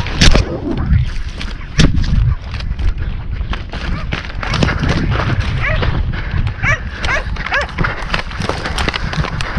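Hunting hounds giving several short, falling yelps in the second half. Two loud sharp bangs come in the first two seconds, with many small knocks and crackles throughout.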